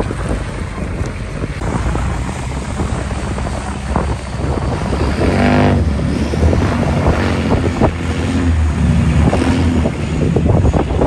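Off-road vehicle engines working under load as they drive through a shallow muddy river, with water splashing around the wheels and wind on the microphone. An engine revs up briefly about five seconds in.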